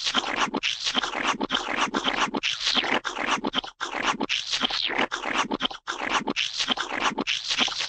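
Gooey, wet squelching and splatting sound effects: a rapid run of short squishes, several a second, broken by brief gaps.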